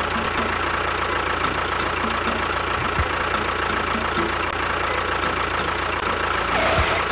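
A motor running steadily, with a faint regular ticking about three times a second.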